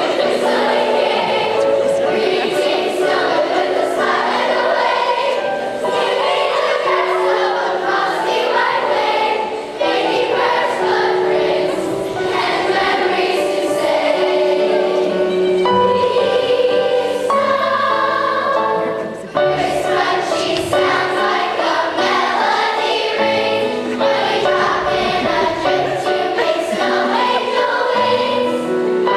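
A school choir singing in many voices, holding notes with shifting harmonies.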